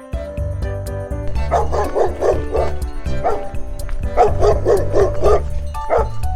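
A dog barking over background music: two quick runs of about six barks each, with a single bark between them and another near the end.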